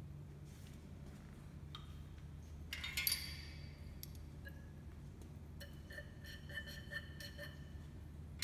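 Glass clinking against glass: a glass pipette and test tubes knock once sharply about three seconds in, ringing briefly, then give a run of lighter clinks a few seconds later. A low steady hum lies underneath.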